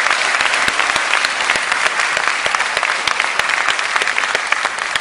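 Audience applauding: dense, steady clapping that thins slightly near the end.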